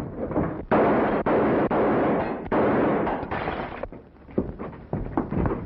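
Several revolver shots in quick succession, each a sudden loud crack with a long echoing tail; after the last, only a few quieter knocks.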